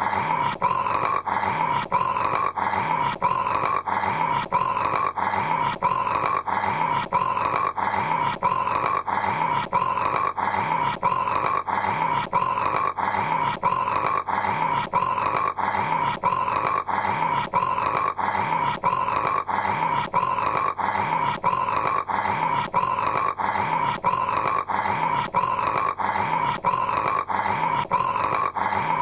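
A man snoring, the same short snore repeating at a quick, even rhythm like a looped recording.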